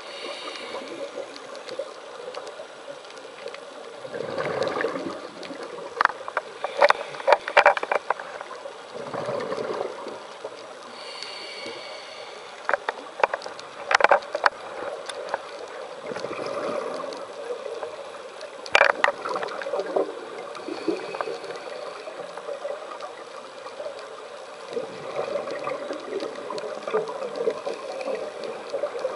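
Scuba diver breathing underwater through a regulator: exhaled bubbles gurgle and rumble every few seconds, with a hiss on some inhalations. Sharp clicks and knocks are scattered among the breaths.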